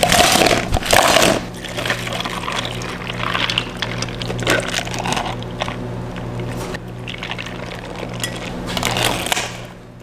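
Ice dropping and clattering into a plastic cup for about the first second and a half, then milk poured over ice from a carton. A steady low hum runs underneath.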